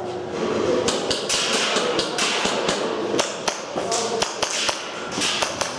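Airsoft gunfire: an irregular series of sharp snapping clicks, several a second, starting about a second in and coming in clusters.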